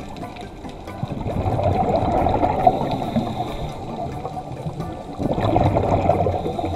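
Scuba diver's exhaust bubbles rumbling past an underwater camera, in two long exhalations: one starting about a second in and lasting about three seconds, the other starting about five seconds in.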